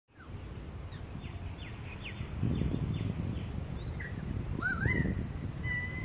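Currawongs calling from the treetops: a run of short downward-slurred notes, then a louder rising, wavering whistle that levels off and holds near the end. A low rumble sits under the calls and grows louder a little before halfway.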